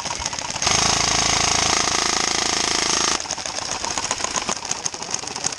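Airsoft electric gun firing one long full-auto burst of about two and a half seconds, a fast steady rattle that starts about half a second in and cuts off suddenly.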